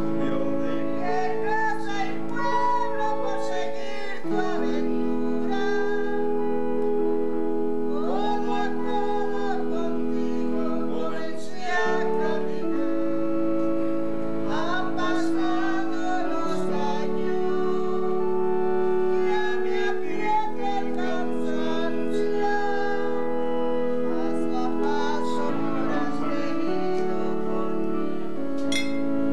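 A woman singing a slow song over held electronic keyboard chords that change every few seconds.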